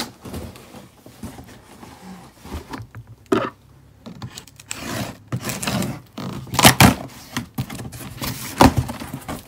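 Cardboard shipping box being handled and opened by hand: irregular scraping, rubbing and sharp knocks of cardboard, busier and louder in the second half.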